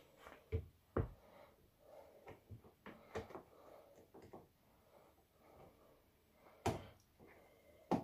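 Scattered light plastic clicks and knocks as a replacement heat-exchanger solenoid valve is worked by hand into its housing on a Bosch dishwasher, with a sharper knock about two-thirds of the way through.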